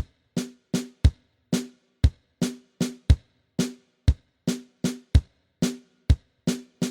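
Electronic pop track opening on a bare drum beat: deep kick drum hits alternating with short, pitched drum hits, about two to three hits a second with silence between them.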